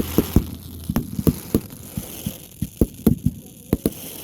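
Fireworks going off: an irregular string of sharp pops and bangs, several a second, thinning out toward the end.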